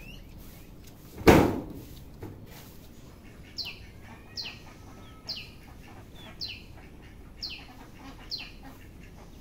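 A bird calling a short, high, falling note over and over, six times about a second apart, starting a few seconds in. About a second in, a single loud bump is the loudest sound.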